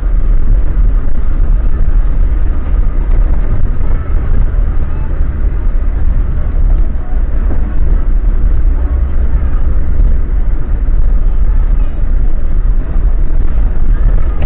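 Off-road 4x4 driving slowly along a rutted dirt lane, heard from inside the cab: a loud, steady low rumble of engine and tyre and suspension noise.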